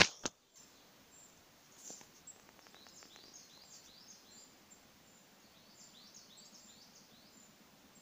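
Small tits calling in the trees: a run of thin, high chirps, each falling in pitch, two or three a second from about two seconds in. A sharp click comes at the very start.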